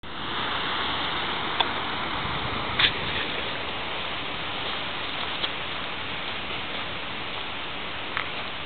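A steady outdoor hiss with four scattered sharp clicks, the loudest about three seconds in.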